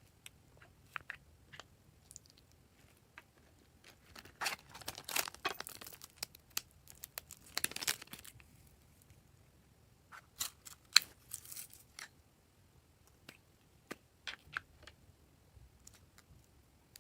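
Purple slime being squeezed and stretched by hand, giving sticky clicks and crackling pops that come in irregular bursts, busiest about five and eight seconds in and again around eleven.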